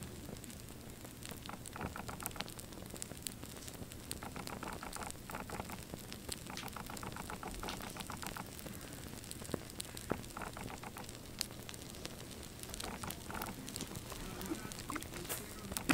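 Flames burning on a toy model car: a steady faint crackle with scattered small pops and ticks.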